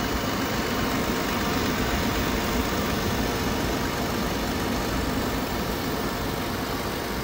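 A 10,000 BTU portable air conditioner running with its fan on high: a steady hum and rush of air with a low rumble underneath.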